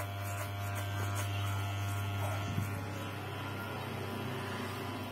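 Electric hair clippers with a plastic guard comb running as they cut a small child's hair, a steady low buzz.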